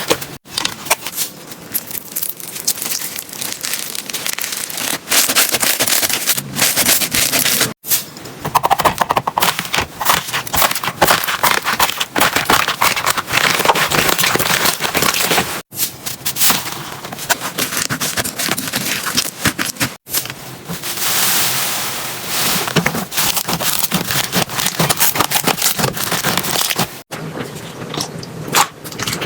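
Slime being squished and pressed by hand, giving dense crackling and popping clicks with wet squelches. The sound changes abruptly every few seconds as one clip cuts to the next.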